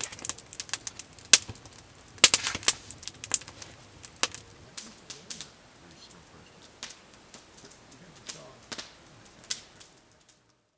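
Wood campfire crackling: irregular sharp snaps and pops, with a quick run of them about two seconds in. A steady high-pitched hum comes in about halfway.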